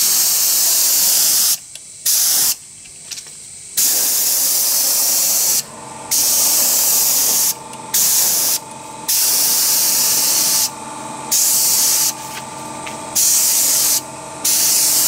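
High volume low pressure (HVLP) spray gun hissing in about nine bursts as the trigger is pulled for each pass, each burst lasting up to a couple of seconds with short breaks between. A faint steady hum shows in the gaps in the second half.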